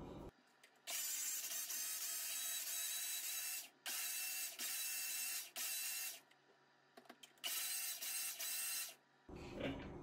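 Countertop blender run in five pulses, blending a liquid drink mix: a first run of about three seconds, then shorter bursts, each starting and stopping abruptly.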